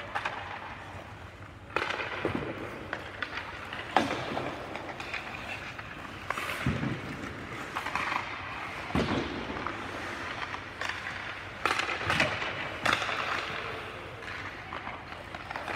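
Ice hockey practice: sharp cracks of sticks hitting pucks and pucks hitting the boards or goal, echoing in an indoor rink. They come a few seconds apart, the loudest about four seconds in, with skates scraping the ice in between.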